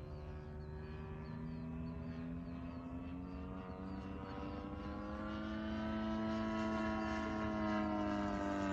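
The 50–60cc gasoline engine of a Hangar9 Pitts S-2B radio-control biplane running in flight overhead. Its pitch climbs between about one and three seconds in, holds high, then eases slightly near the end, and it grows louder through the second half as the plane comes closer.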